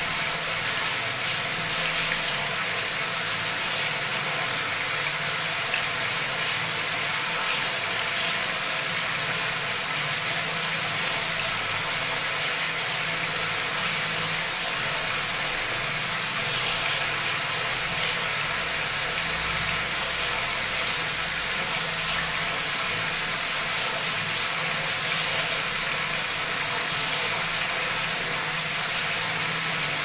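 Water from a bathroom wall tap running at full flow into a brim-full tub, a steady splashing rush as the tub overflows.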